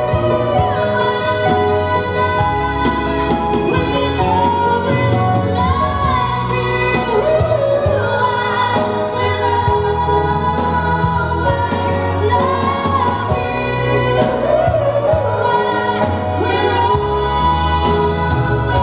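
A woman singing live into a microphone over keyboard accompaniment from a Roland XP-80 synthesizer, with sustained chords and a steady bass line.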